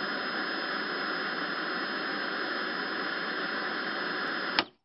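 Steady hiss of static noise with a thin high whine running through it, cut off by a sharp click near the end.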